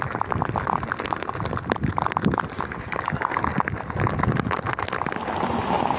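Heavy rain coming down: dense, irregular sharp taps of big raindrops striking close by, thickening into a steady rain hiss about five seconds in.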